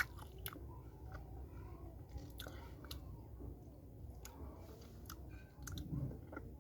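A person biting and chewing lumps of multani mitti (Fuller's earth clay), with irregular crisp crunches and clicks. There is a duller low sound about six seconds in.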